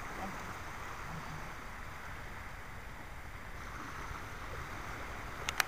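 Gentle surf washing on the shore, a steady hiss, with wind rumbling on the microphone; a couple of sharp clicks near the end.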